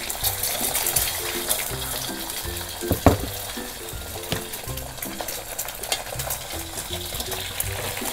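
Beaten egg frying in a little oil in an aluminium wok, with a steady crackling sizzle. A sharp knock about three seconds in is the loudest moment, and a spatula moves into the pan near the end.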